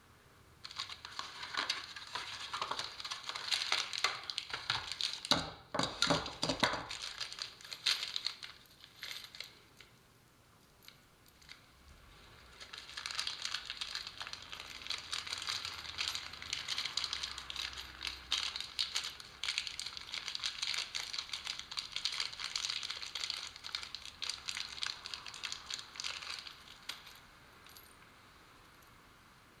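Plastic sheeting crinkling as it is handled, in two long stretches with a pause between, and a few knocks about six seconds in.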